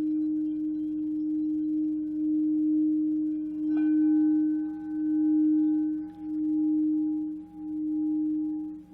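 Singing bowl ringing with a low, sustained hum that swells and fades about once every second and a bit. It is struck again about four seconds in, adding a brighter, higher ring over the hum.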